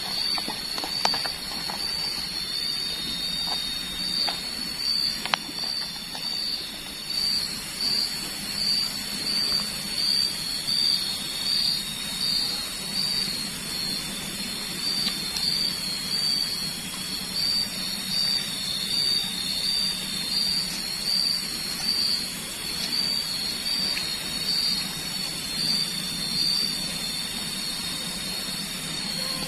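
Insects calling in a high, pulsing chorus that swells about once a second, over a steady hiss. A few sharp clicks come in the first few seconds.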